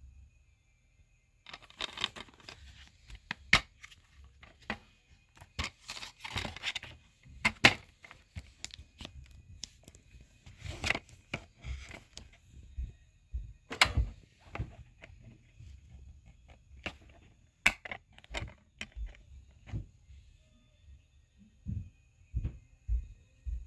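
Irregular handling noises: sharp clicks and knocks mixed with short bursts of crinkling and rustling.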